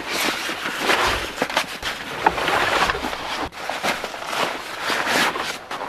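Nylon fabric rustling and swishing as a sleeping bag is stuffed down into a backpack and the pack is shaken and pulled upright, with a steady crackle of handling throughout.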